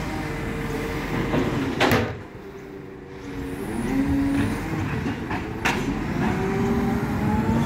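Bucher side-loader garbage truck running at the kerb as its hydraulic arm handles a wheelie bin. The hydraulic whine rises and falls in pitch as the arm moves, with a sharp knock about two seconds in and another about six seconds in as the bin is handled and set down.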